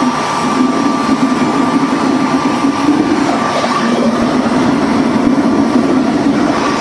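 Home-made waste oil furnace burning its kerosene start-up fuel under forced air, before any oil is fed: a loud, steady, rough roar of blower and flame, with a faint steady whine over it.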